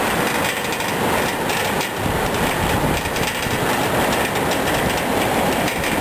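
Steady rushing and rumbling with a rattling clatter from an open aerial ride moving over the canyon: wind on the microphone and the car's running gear rolling along its cable.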